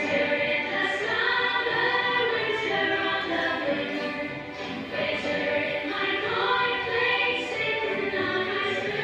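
A choir of voices singing a song with musical backing; the singing comes in suddenly.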